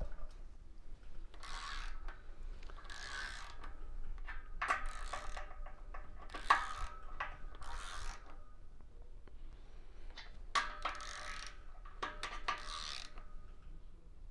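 Ratcheting torque wrench tightening the rear main bearing cap nuts of a Jaguar 5.3 L V-12 block, in about seven short runs of rapid ratchet clicks. The nuts are drawn down in turn from side to side to squeeze and size the rear main seal.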